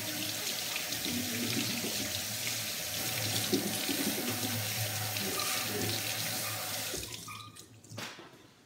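Kitchen tap running into the sink as hands work under the water, a steady rush that is shut off about seven seconds in. A single sharp click follows shortly after.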